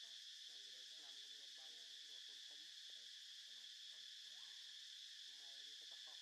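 A faint, steady, high-pitched drone of an insect chorus, with faint distant human voices coming and going underneath.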